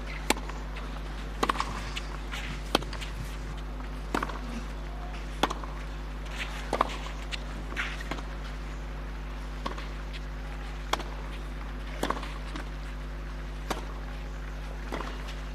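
Tennis ball struck back and forth with rackets in a long clay-court rally: a sharp hit about every one to one and a half seconds, over a steady low hum.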